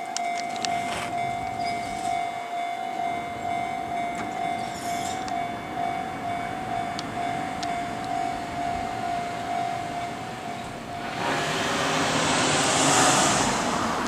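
Electronic level-crossing bell ringing a steady, evenly repeating tone. About eleven seconds in, a JR Central 313-series electric train comes through, its rushing wheel and body noise swelling to the loudest point and drowning out the bell.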